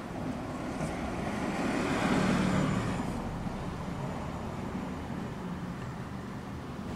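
Steady road traffic noise, with one vehicle passing that swells and fades about two seconds in.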